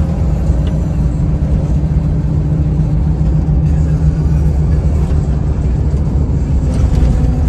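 Coach bus driving, heard from inside the passenger cabin: a steady low rumble of engine and road noise with a faint hum.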